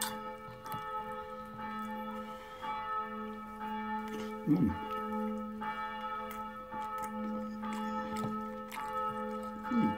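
Steady, bell-like chiming tones that restart about once a second. Over them are soft sounds of a man eating by hand, with a short mouth noise about four and a half seconds in and again near the end.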